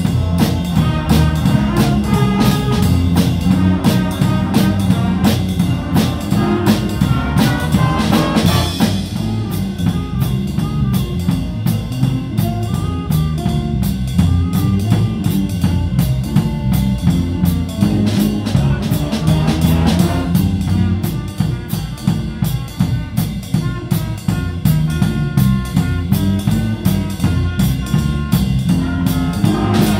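Live band music led by a drum kit: the drummer keeps a steady beat of snare, bass drum and cymbal hits under horn lines. The band drops to a softer passage about twenty seconds in, then builds again near the end.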